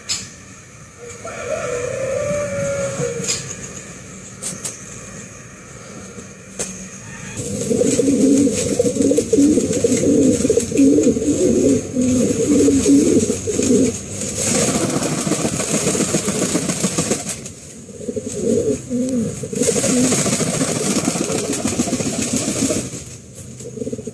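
Pomeranian Pouter pigeon cooing: runs of low, rolling coos, with stretches of a rushing noise between them.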